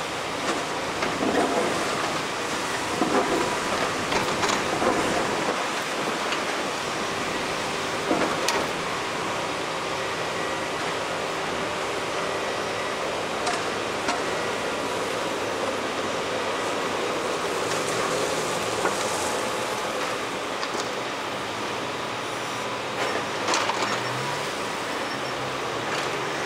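Daewoo 255LC-V tracked excavator working: its diesel engine and hydraulics run steadily as it digs and loads soil into a dump truck, with a few short knocks scattered through.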